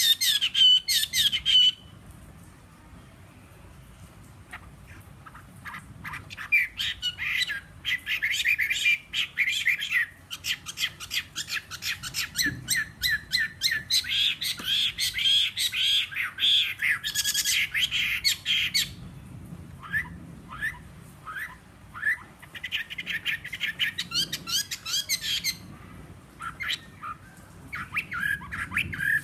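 Caged Chinese hwamei, a three-moult fighting bird, singing in long, varied runs of quick rising and falling notes. After a short burst it pauses for a few seconds, then sings for long stretches, and the phrases grow shorter and more scattered toward the end. The owner says its voice is slightly hoarse.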